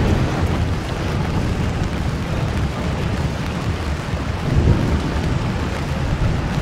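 Wind buffeting the microphone with a steady low rumble, over the hiss of rain.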